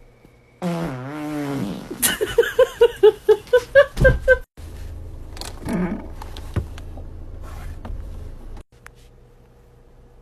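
A fart with a wavering pitch, followed by a quick run of about ten short pitched pulses over two seconds or so.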